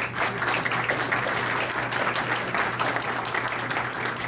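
Audience applauding in a hall, breaking out suddenly and continuing steadily, with a low steady hum underneath.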